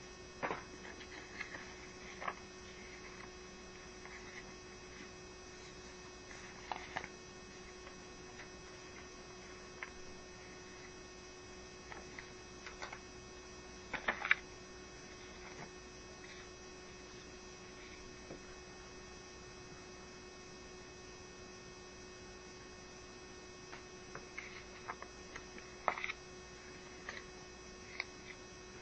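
Steady low electrical hum with a faint constant tone, broken a few times by short soft clicks and rustles.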